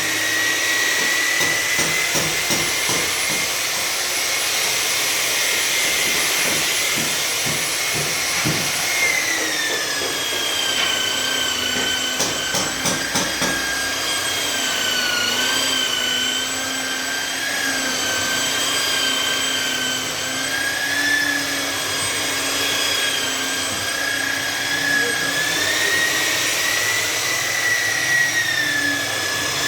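Handheld power tool working car paintwork, running with a steady high whine over a hiss. About nine seconds in its pitch drops a little and then wavers, with a few quick clicks a few seconds later.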